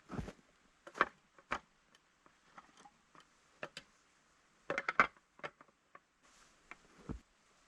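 Irregular knocks and clicks from objects being handled, with a dense cluster of them about five seconds in.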